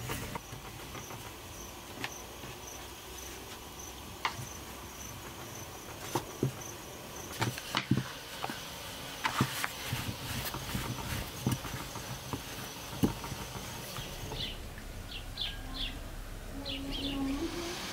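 An insect chirping in a fast, even, high pulse, with scattered sharp clicks and knocks over it. The chirping stops about three-quarters of the way through, and a few short, high chirps follow near the end.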